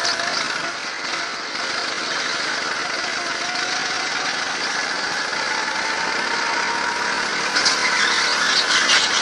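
Go-kart engine running under throttle, heard from the driver's seat, its note rising slowly through the middle. Near the end the tyres squeal in short bursts as the kart slides through a corner on the smooth indoor track surface.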